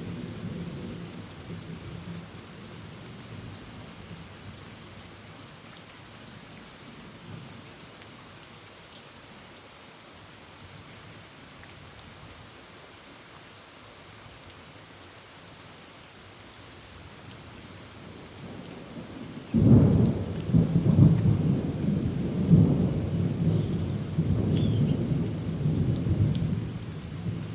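Heavy rain falling steadily on a tin roof, with a low thunder rumble dying away at first. About three-quarters of the way in a sudden loud thunderclap breaks and rolls on as a deep rumble.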